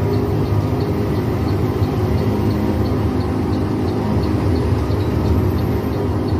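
Bus engine droning steadily, heard inside the cabin, with the turn-signal indicator ticking about twice a second.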